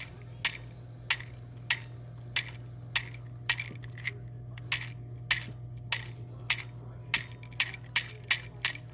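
Toy popcorn machine with a chamber crowded with little toy kernels: short light plastic clicks about every half second, coming a little quicker near the end, over a low steady hum.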